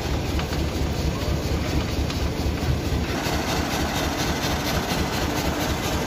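Concrete mixer truck running, its diesel engine and turning drum making a steady low rumble that grows a little brighter about halfway through.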